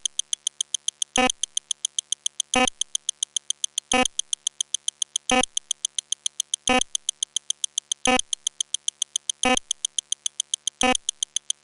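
Rapid, evenly spaced electronic ticks from a counter sound effect, roughly six a second, with a stronger click about every second and a half.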